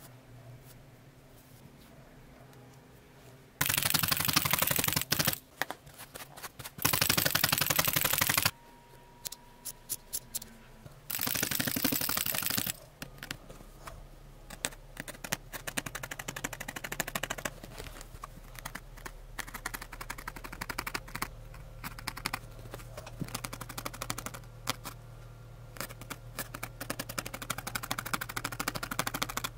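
A felting needle stabbing over and over through wool roving into a burlap-covered felting mat, a rapid ticking. Three loud stretches of very fast stabbing come in the first half, then quieter separate pokes follow.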